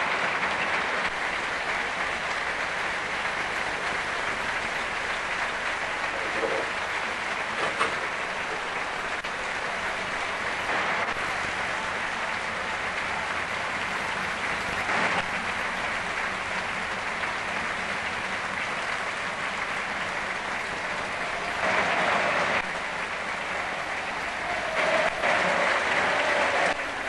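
A packed football stadium crowd applauding in one long, very warm, steady ovation. The clapping swells louder twice near the end.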